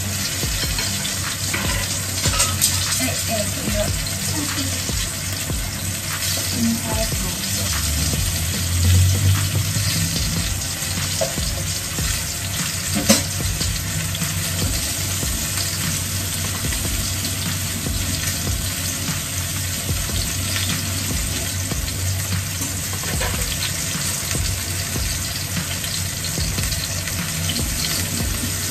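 Food sizzling steadily in a frying pan, with scattered clicks of a utensil working in the pan and one sharp knock about thirteen seconds in.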